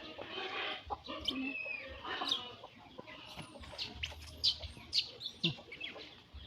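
Scattered short clucking and chirping calls of birds, one after another.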